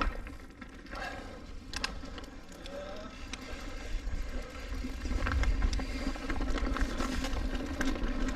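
Mountain bike rolling along a dirt trail: tyre and wind rumble on the bike-mounted microphone, with rattles and knocks from the bike that get louder from about halfway as it picks up speed.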